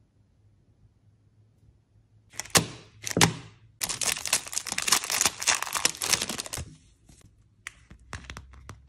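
Clear plastic wrapping crinkling and rustling as it is handled, starting about two seconds in and going on for about four seconds. A few light clicks follow near the end.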